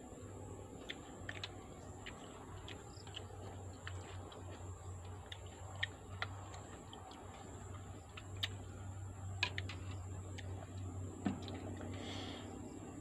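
Scattered light clicks and taps of balut eggshells being cracked and peeled by hand and a spoon knocking in a bowl, irregular and a few per second, over a low steady hum.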